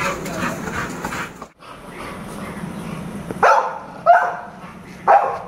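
A dog barking three times in the second half, a little under a second apart.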